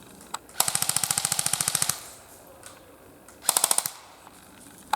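Airsoft gun firing on full auto: a rapid burst of just over a second, then a shorter burst of about half a second.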